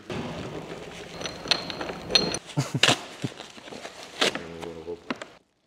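Plastic bubble wrap and foam packaging rustling and crinkling as it is pulled off a new motorcycle's handlebars, with scattered sharp clicks and knocks of handling.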